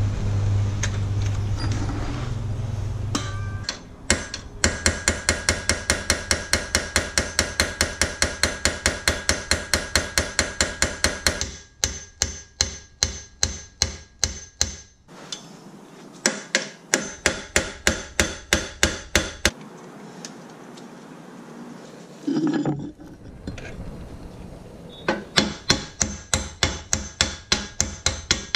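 A hand torch's flame hissing for the first few seconds. Then a hammer beats a punch against a seized steel suspension bolt: long runs of fast metallic strikes, about five a second, with short pauses. The bolt stays seized under the heat and hammering.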